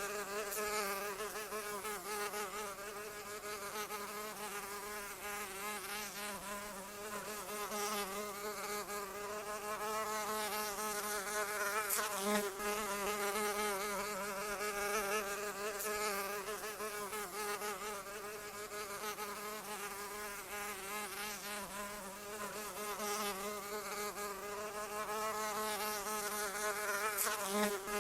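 Flying insect buzzing without pause, its wingbeat pitch wavering up and down as it moves about, with a couple of brief louder swells.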